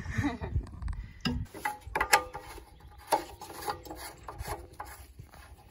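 Scattered clicks, knocks and scraping from handling a push mower's small engine as gas is added from a plastic gas can and the primer bulb is pushed; the engine is not running.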